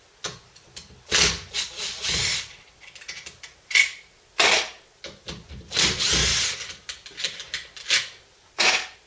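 A small power driver spinning in short runs as it undoes the bolts holding the pump's metal shield. There are about half a dozen bursts, each under a second, and the longest comes about six seconds in.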